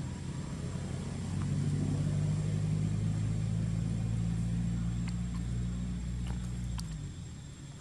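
An engine running with a steady low hum. It grows louder about a second in and fades out near the end, with a few faint clicks over it.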